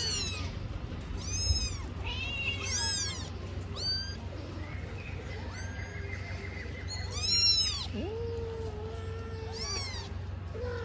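Kitten and cats meowing repeatedly: short, high-pitched, arching kitten cries, the loudest about seven seconds in, followed by one longer, lower, steady meow.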